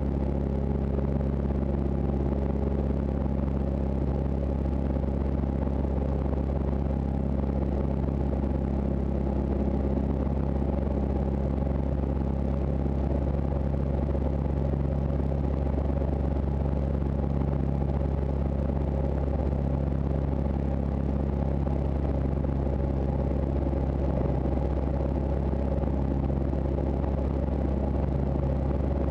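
Van's RV-6 light aircraft's piston engine and propeller droning steadily in flight, heard inside the cockpit.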